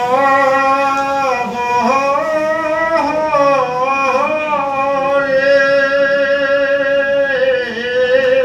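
A man's voice chanting a verse of Assamese Kirtan in long, drawn-out held notes with slow slides in pitch, sung into a microphone.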